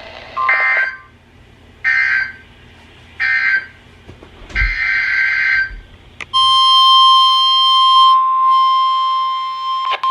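NOAA Weather Radio Emergency Alert System signalling: four short, harsh digital data bursts of SAME code, then about six seconds in the steady single-pitch 1050 Hz warning alarm tone begins. The tone announces an incoming warning, here a severe thunderstorm warning.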